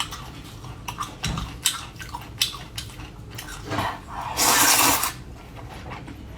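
Close-up eating sounds of luosifen rice noodles: small wet smacks and clicks of chewing, with one long hissing slurp about four and a half seconds in.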